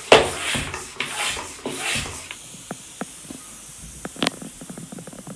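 Floor pump worked in three quick strokes, each a rush of air, reinflating a tubeless road tyre after its valve core was refitted. The strokes stop after about two seconds, followed by small light ticks and one sharp click about four seconds in.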